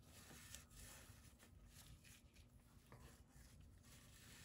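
Faint, irregular rasping strokes of a green abrasive scratch pad scrubbing the engine block's water pump gasket surface, cleaning up coolant pitting.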